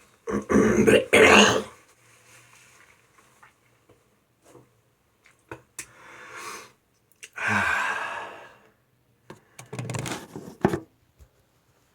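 A person coughing and clearing their throat in several fits: a loud double cough about a second in, then breathier coughs and rasps further on, as after inhaling cannabis smoke.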